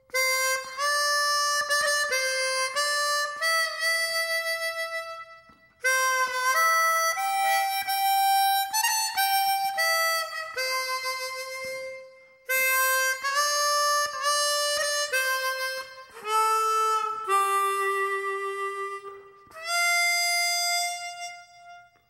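Background music: a solo harmonica playing a melody in phrases, with short pauses between them.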